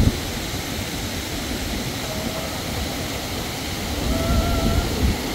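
Muddy floodwater rushing and churning as it pours over a low spillway, a steady wash of water noise.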